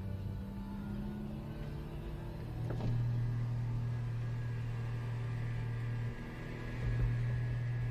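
Car engine and tyre noise heard from inside the cabin while driving downhill: a steady low engine hum that gets louder about three seconds in, drops briefly near six seconds, then picks up again.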